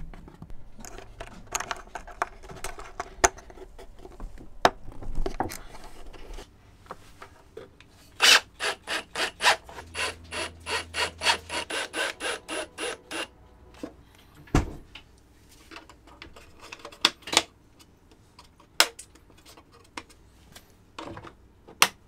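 Ryobi cordless drill driving screws into a wooden dash panel: a run of rapid, evenly spaced pulses, about four a second, lasting about five seconds in the middle. Before it, hands rub and click at a cable connector and small parts; after it, a few scattered clicks and knocks.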